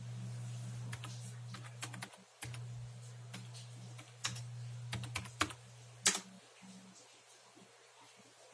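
Password being typed on a computer keyboard at a Windows login screen: a run of key clicks, ending in one louder key press about six seconds in. Under the typing is a low steady hum that stops at that last key press.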